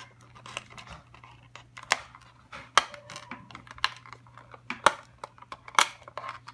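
Scissors snipping through clear plastic packaging and ties, with the plastic crackling: a string of sharp, irregular clicks, the loudest coming about once a second in the second half.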